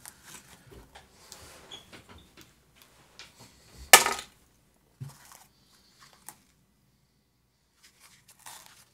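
Hands handling a diffuser's wooden base and its foam-wrapped pump: faint rustling and scraping, with a sharp knock about four seconds in and a softer one a second later.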